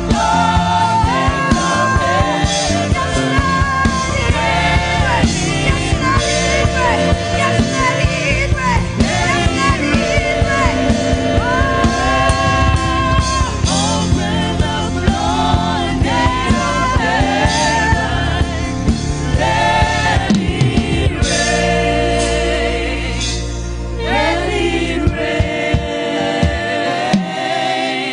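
Gospel song with lead and choir vocals over a band with a steady beat; the beat drops out about 21 seconds in and the music fades toward the end.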